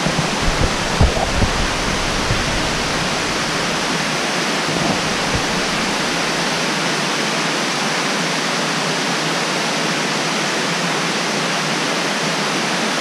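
Steady rushing of a waterfall, white water pouring down over rock close by, with a few low bumps in the first second and a half.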